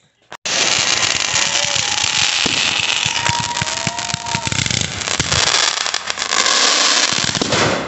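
Fireworks going off: a dense barrage of bangs and crackling that starts abruptly about half a second in, with a few whistling tones gliding in pitch.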